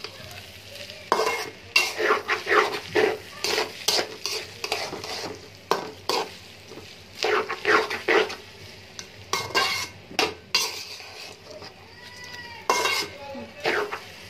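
Metal spoon scraping and clinking against a steel pot while stirring rice being fried for pulao, in irregular strokes over a light sizzle. Near the end, a brief metallic ring sounds.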